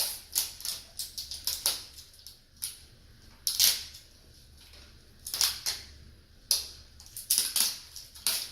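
Wrapping layers of a toy surprise ball crinkling and tearing as they are unwrapped by hand, in irregular short rustles.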